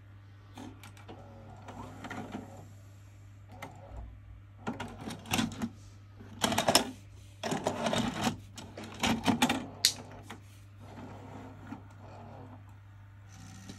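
VCR deck of a Panasonic NV-VP31 DVD/VHS combo handling a VHS cassette: the eject and load mechanism makes a run of clicks, whirs and clunks as the tape comes out and is pushed back in and threaded. The mechanism is loudest through the middle, over a steady low hum.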